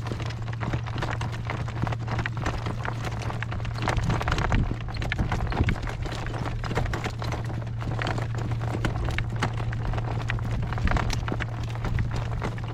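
Horse's hooves clip-clopping on a road as he is driven in harness, a steady run of strikes over a constant low hum.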